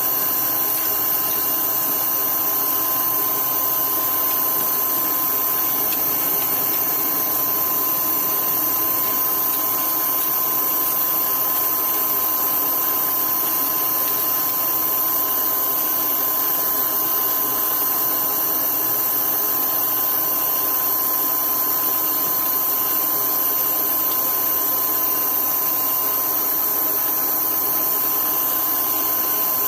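A power tool's motor running steadily without a break, with an even whine and a strong constant tone in it.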